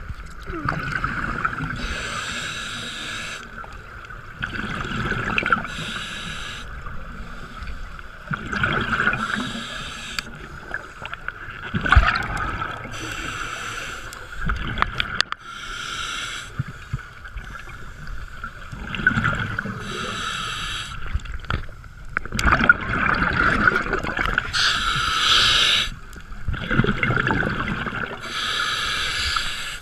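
A diver breathing through a scuba regulator underwater: a hissing inhalation every few seconds, alternating with rumbling bursts of exhaled bubbles.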